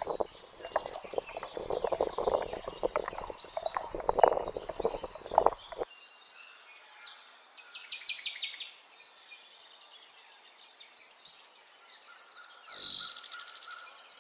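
Wooden spoon stirring and scraping a thick spice marinade in a plastic cup in quick, uneven strokes for about the first six seconds, with birds chirping behind. The stirring then stops and only the birdsong goes on, with a brief louder, falling sound near the end.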